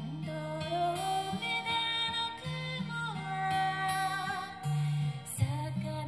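A slow, lullaby-like song: a voice singing a held, gliding melody over acoustic guitar.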